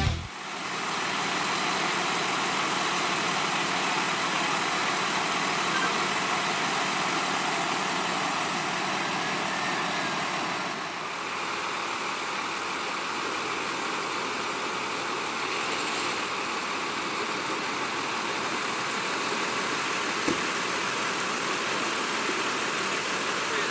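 Emergency vehicles idling in the rain: a steady hiss of rain on wet pavement over a low engine hum, with one small click about twenty seconds in.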